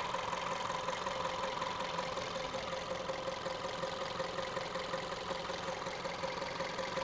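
VW Golf 1.2 TSI turbocharged petrol engine idling steadily, with a steady whine over the running.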